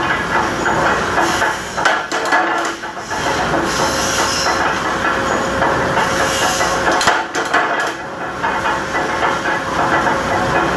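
Mechanical power press with a large flywheel running steadily, with metal clanks as metal channel stock is fed in and cut.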